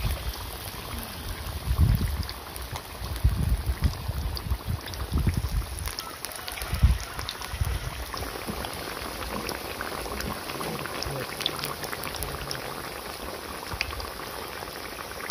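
Battered breadfruit slices deep-frying in a wok of hot oil: a steady sizzling and bubbling. Irregular low thuds and rumbles come and go through the first half.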